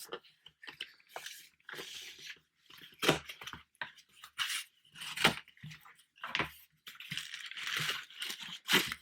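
A mailed package being torn open by hand: packaging tearing and crinkling in irregular bursts, with a few sharp clicks or knocks, the loudest about three seconds, five seconds and near the end.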